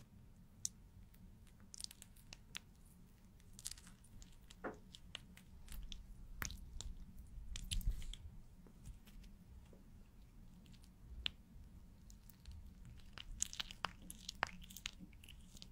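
Marker pen drawing on a glass pane: faint, irregular scratchy strokes and light clicks of the tip, busiest in the middle and again near the end.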